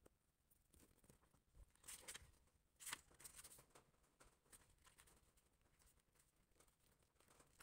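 Faint handling of a paperback book: the cover opening and paper pages rustling and flicking as they are leafed through, with louder rustles about two and three seconds in.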